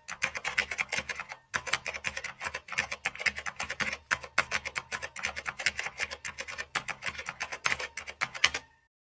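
Rapid, irregular clatter of computer keyboard keys typing, several keystrokes a second, stopping just before the end.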